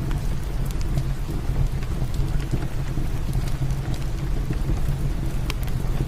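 Steady heavy rain with a low rumble underneath, over a wood fire in a fireplace crackling with scattered sharp pops.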